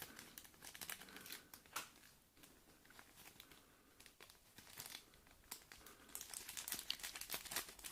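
Faint crinkling and rustling of packaging being handled, with scattered small clicks, getting busier over the last two seconds.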